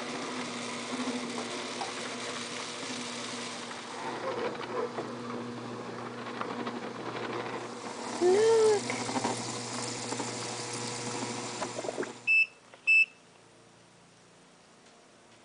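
A CatGenie self-washing litter box beeps twice, two short high electronic beeps about 12 seconds in, and a steady hum cuts out just before them. Earlier, around 8 seconds in, a cat meows once, a short loud call that rises and falls.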